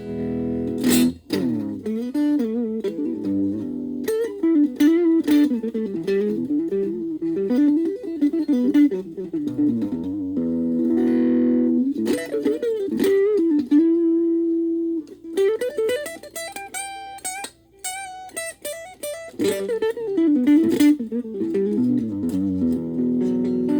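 Les Paul-type electric guitar played through a VOX Soundbox Mini amp with the guitar's tone knob at zero, giving a dark tone. It plays single-note lead lines with string bends and vibrato, a few held chords, and one long sustained note about halfway through.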